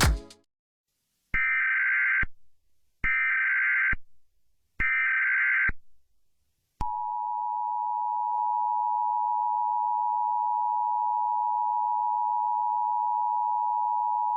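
Emergency Alert System tones: three short bursts of the buzzing digital SAME header, each about a second long, then from about seven seconds in the long, steady two-tone EAS attention signal.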